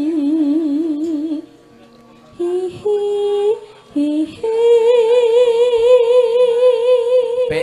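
A Javanese sinden (female gamelan vocalist) sings a slow line into a microphone, holding notes with wide, even vibrato. A low held note breaks off about a second and a half in. A few short notes follow, then from about halfway a long, higher note is held with steady vibrato.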